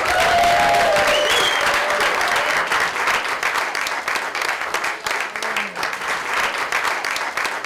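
Theatre audience applauding, a dense steady clapping with a voice or two calling out in the first second and a half, getting quieter after about three seconds.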